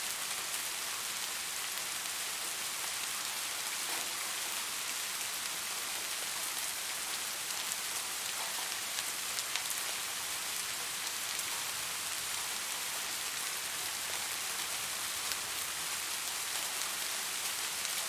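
Steady rain falling: an even, constant hiss with scattered faint ticks of individual drops.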